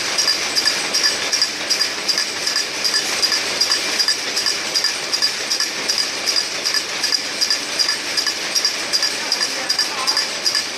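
AGS-100 air gun slug making machine running at production speed: a steady rhythm of clicks about four a second, about one per slug at its rated 15,000 an hour, over a steady mechanical hiss.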